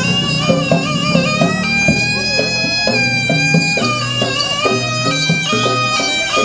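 Live jaranan accompaniment music: a shrill reed shawm (slompret) plays a wavering, ornamented melody over repeated low gong-chime notes and drum strokes.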